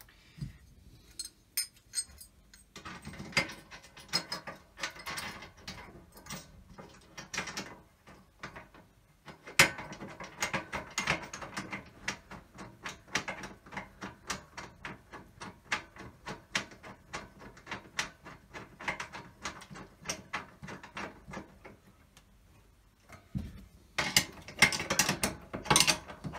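Ratchet spanner clicking in quick runs as bolts are tightened down into slotted steel strut channel. It stops and starts three times, with short quiet gaps between the runs.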